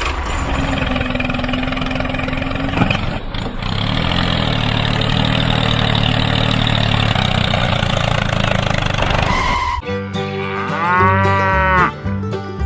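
A steady, loud noisy sound for about ten seconds, then a single animal call that rises and falls in pitch, of the kind a cow makes when mooing.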